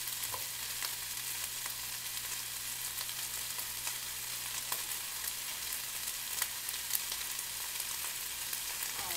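Precooked sliced turkey sizzling in a frying pan on the stove: a steady frying hiss with scattered small crackles and pops.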